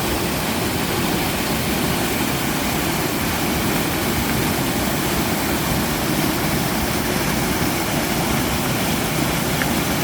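Mountain-stream waterfall pouring into a rock pool: a steady, unbroken rush of falling water.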